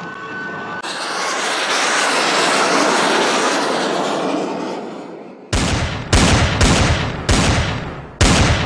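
A jet fighter passes over, its noise swelling and then fading away. It is followed by a rapid string of five explosions, each a sudden blast dying away, over the last three seconds.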